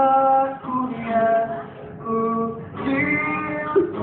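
Live acoustic guitars strummed as accompaniment while a voice sings a slow melody in long held notes, one after another with brief breaks between them.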